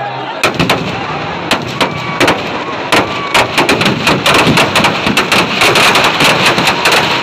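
Firecrackers packed in a burning Kumbhkaran effigy going off in a rapid, irregular string of loud bangs, coming thicker and faster about four seconds in.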